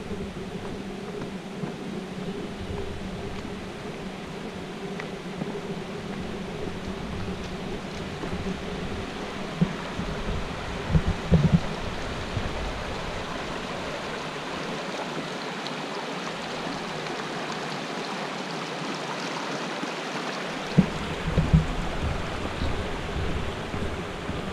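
Water pouring over a small dam's spillway, a steady rushing cascade. A few brief low thumps break in about halfway and again near the end.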